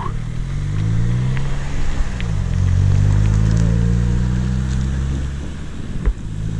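Small engine of an MBK motorbike under way. Its pitch rises over the first second and a half, dips briefly just after two seconds, then holds steady before easing off. A single sharp knock comes near the end.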